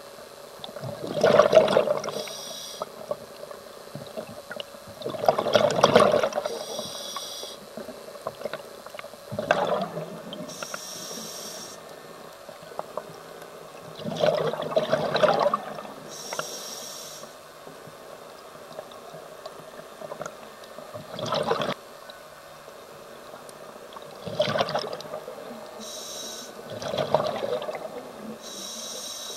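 Scuba diver breathing through an open-circuit regulator: a short hiss on each inhale, then a loud gurgling rush of exhaled bubbles, repeating about every four to five seconds, seven exhalations in all.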